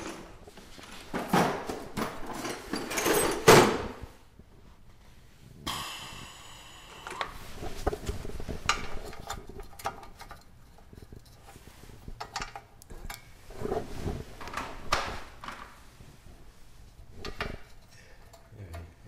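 Hand tools and metal parts of an old small gasoline engine being handled while its carburetor cover is taken off: a run of clanks, clicks and knocks, with a scrape about six seconds in.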